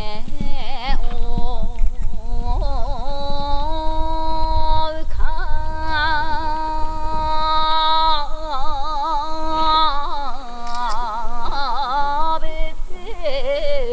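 A boatwoman singing an unaccompanied Japanese folk song, with long held notes joined by wavering, ornamented turns. A steady low rumble runs underneath.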